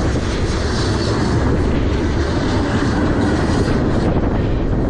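Freight train tank cars rolling past close by, their steel wheels running on the rails in a loud, steady noise.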